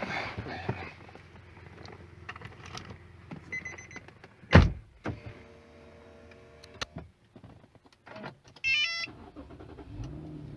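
Car sounds from an Infiniti FX37S being opened up and readied to drive: an electronic beep, a loud door thump about halfway through, a short electric motor whir, and a quick run of electronic chime tones near the end.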